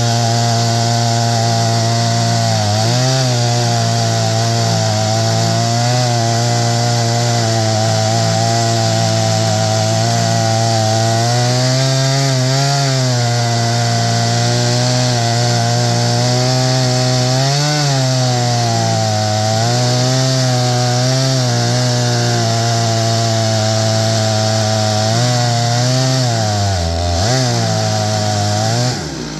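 Stihl MS661 two-stroke chainsaw running at high throttle under load, its full chisel chain ripping lengthwise through a pine log in an Alaskan mill. The engine note holds steady, sagging briefly a few times as the cut loads it. Just before the end its pitch falls sharply and the sound cuts off.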